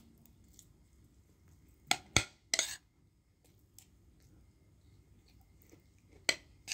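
Metal spoon clinking and scraping against a plate: three quick sharp clinks about two seconds in, the last a little drawn out, and another near the end.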